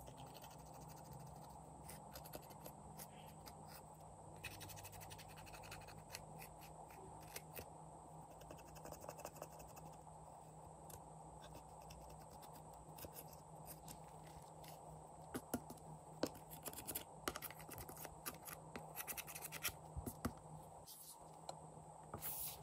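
Metal cosmetic spatula scratching and crumbling pressed glitter eyeshadow in its palette pans: faint dry scraping with many small clicks. The scraping gets busier after about fifteen seconds.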